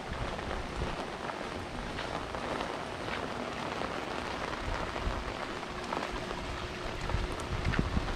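Steady rain falling, with scattered individual raindrops ticking.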